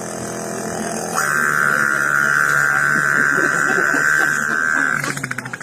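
A boy imitating a running generator with his voice: a steady, buzzing engine-like drone that grows louder about a second in and sputters out near the end.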